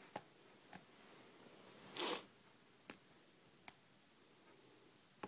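Blue-nose American pit bull terrier chewing a toy: a few faint, scattered clicks of teeth on the toy, and about two seconds in one short, louder snort.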